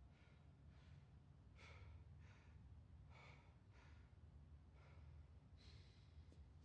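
Faint, strained breaths and gasps of men grappling on the floor, one every half second to a second, over a low steady hum.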